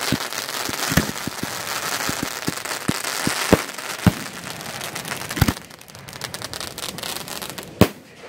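1.3 display fireworks bursting: a rapid string of sharp reports over dense crackling for the first five seconds or so, then a lull broken by one loud bang near the end.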